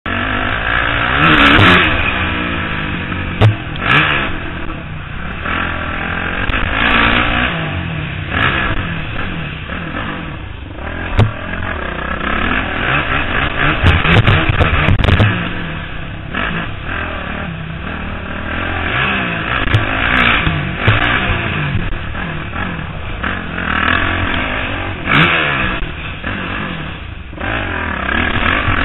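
Motocross bike engine revving up and dropping off again and again through corners and straights, heard close from a helmet camera, with a few sharp knocks along the way.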